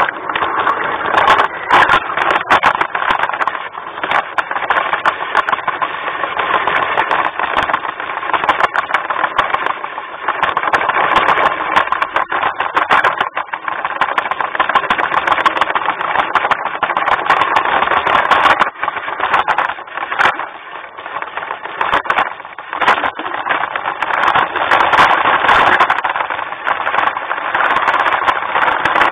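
LGB garden-scale model train running along its track, heard up close from on board: a steady whirring of motor and wheels, dense with short clicks and rattles.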